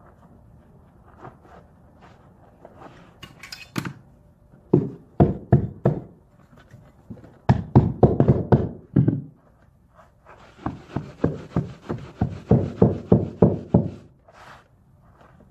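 A mallet knocking carpet tile down onto a stair tread and nosing, in runs of sharp blows. There are a few faint taps at first, then about five strong blows, a fast cluster in the middle, and a steady string of about three blows a second near the end.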